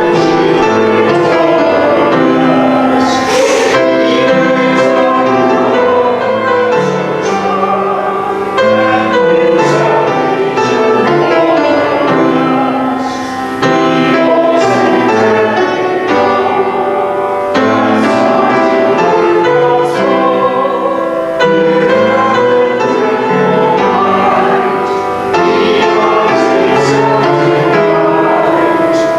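Church music with piano and singing voices, running steadily without a break.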